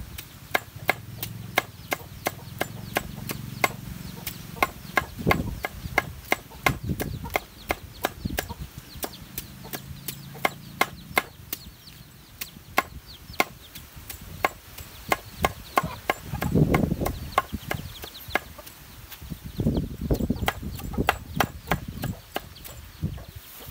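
Knife chopping on a cutting board in a steady rhythm, about two to three strokes a second, most likely vegetables being cut up for pickling.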